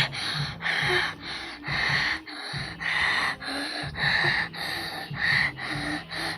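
A person's voice making loud, breathy vocal noises in short bursts, about two or three a second, with no clear words.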